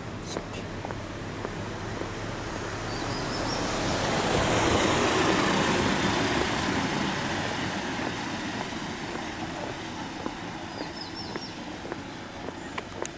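A van driving past on the road alongside, its engine and tyre noise swelling to a peak about five seconds in and then fading away. Footsteps on paving tick underneath, and a bird chirps briefly twice.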